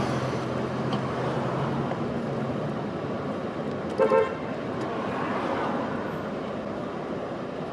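Street traffic noise with a car horn giving two quick toots about four seconds in.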